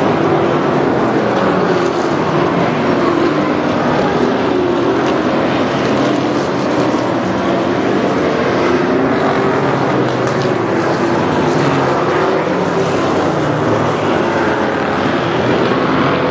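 A field of Thunder Car stock cars racing, many engines running at once in a loud, steady drone, with overlapping engine notes wavering up and down as the cars pass.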